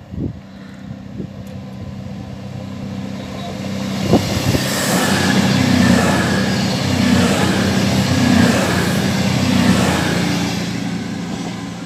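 CrossCountry Voyager diesel multiple unit passing through at speed: its underfloor diesel engine drone and the rush of wheels and air build over the first four seconds, then stay loud as the coaches go by, swelling and dipping at a steady rate. A single sharp clack sounds about four seconds in.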